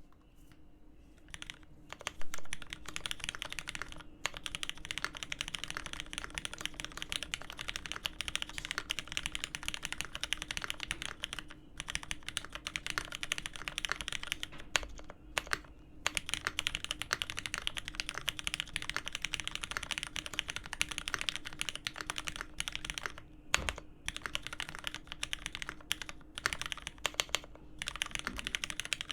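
Continuous fast typing on a custom mechanical keyboard with lubed Hyperglide Cherry MX Black linear switches on 67g springs, an aluminium plate and GMK keycaps. The keystrokes start about a second and a half in and run as a dense stream of clacks, with a few brief pauses.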